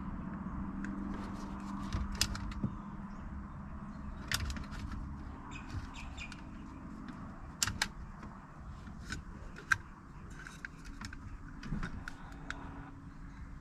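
Scattered sharp clicks and light taps from hands working the A-pillar gauge pod and the dash switches, over a low steady hum that drops away about halfway through.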